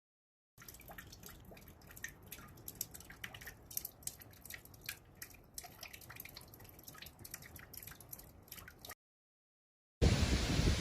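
Water dripping: many quick, irregular drips and small taps.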